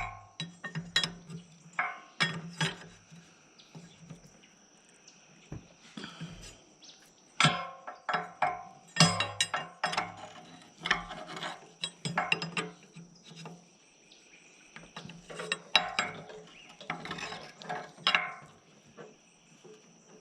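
Irregular metallic clanks and clinks, some ringing briefly, of tools and parts being handled on heavy equipment under repair, over a faint steady high-pitched insect drone.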